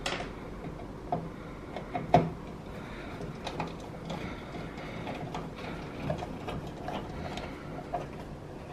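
Screwdriver working the mounting screws of a desktop PC's motherboard, with scattered small metallic clicks and ticks.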